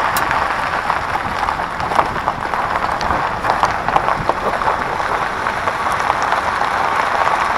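Vehicle tyres rolling along a gravel dirt road: a steady crackling hiss with scattered clicks of stones, picked up by a camera mounted outside the vehicle.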